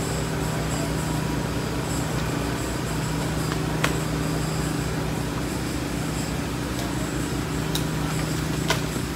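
Kubota KX91-3 mini excavator's diesel engine running steadily while the machine handles an uprooted tree stump, with a sharp knock about four seconds in and another near the end.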